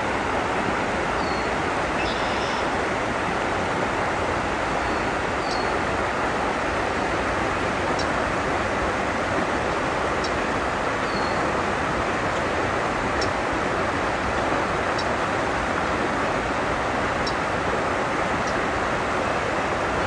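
River water rushing over rocks and shallow rapids, a steady even rush. A few faint, short high bird chirps come through now and then.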